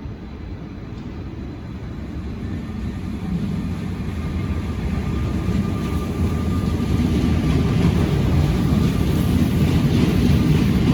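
Train running into the station, its low rumble growing steadily louder, with a faint steady whine joining about halfway through.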